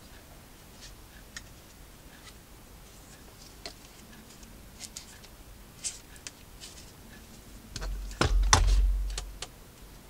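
Light plastic clicks and taps from a robot vacuum cleaner's body being handled and turned over. About eight seconds in there is a louder bump with a low rumble and a few sharp clicks as it is handled and set back on the desk.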